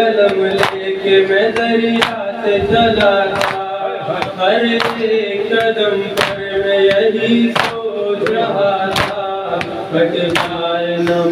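A noha chanted by a male voice through a microphone, with other men joining in, over the rhythmic slaps of matam (open-handed chest beating), about one every second and a half.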